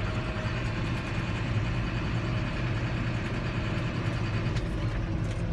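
John Deere 7530 tractor's diesel engine running steadily while driving, heard inside the cab as a low, even hum.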